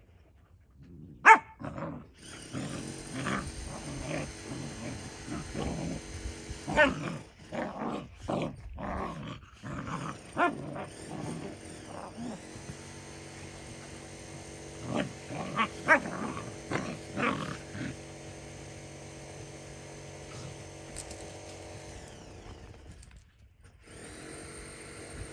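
Adult Belgian shepherd mix and her puppy play-fighting: a run of growls and snarls broken by a few sharp barks, loudest about a second in and again around the middle, tailing off toward the end.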